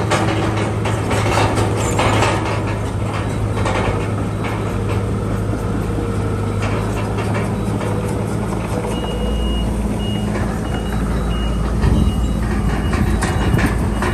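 Heavy diesel earthmoving machinery running, with metal clanking in the first few seconds. About nine seconds in, a reversing alarm starts beeping, about one and a half short beeps a second.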